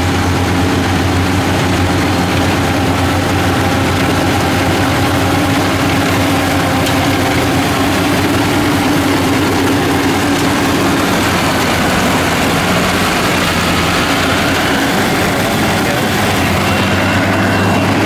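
Yanmar YH850 rice combine harvester's diesel engine running steadily under load, with a dense, even mechanical din from the machine as it cuts rice.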